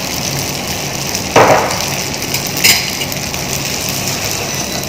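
Stainless-steel frying pan being stirred and tossed with a wooden spatula on an induction hob: a knock about a second and a half in, then a sharper metallic clink, over a steady hiss.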